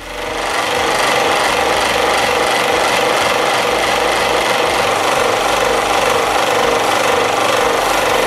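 Flexible drive shaft of a SIP 16-inch scroll saw, powered by the saw's 90-watt motor, spinning a small abrasive bit that grinds and sands along the edge of a wooden workpiece. The noise builds over about the first second, then holds steady.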